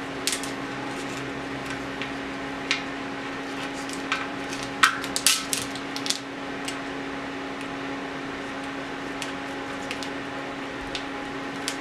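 Scattered small clicks and taps of gloved hands and a tool working tubeless rim tape onto a mountain-bike rim, with a cluster of sharper clicks about five seconds in. A steady low hum runs underneath.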